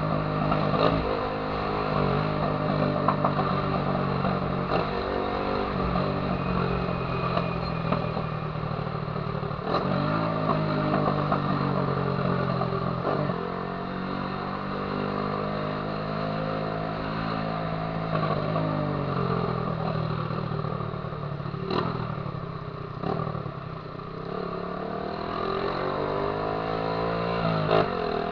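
Honda Titan 150's single-cylinder four-stroke engine through a loud aftermarket viúva-negra exhaust, while riding. The pitch climbs as it revs through a gear, then drops at each shift, several times over.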